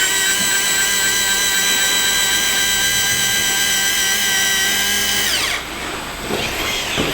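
Small electric motor of a radio-controlled construction model whining steadily at high speed, then winding down about five and a half seconds in, followed by short whines that rise and fall as it is driven again.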